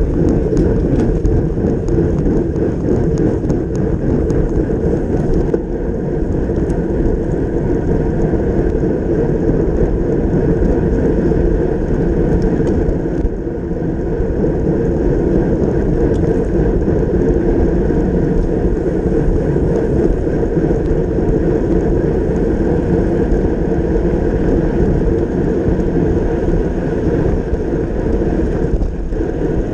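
Steady wind rush and road rumble on the microphone of a camera mounted on a road racing bicycle riding at speed in a race bunch.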